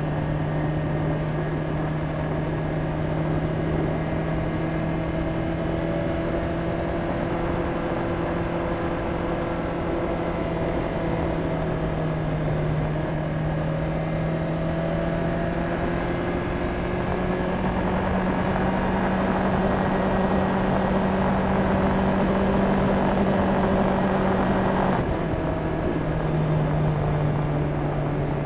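BMW K1300S inline-four engine running at a steady cruise, its pitch climbing slowly as the bike gathers speed, then dropping suddenly near the end before settling again. Under it is a steady rushing noise.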